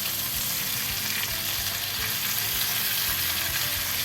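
Marinated chicken leg pieces sizzling in sunflower oil and butter on a hot tawa over a low flame: a steady frying hiss.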